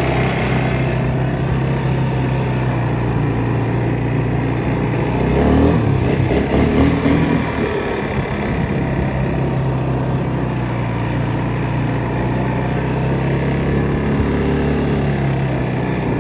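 ATV engine running steadily while being ridden, its pitch rising and falling briefly about five to seven seconds in.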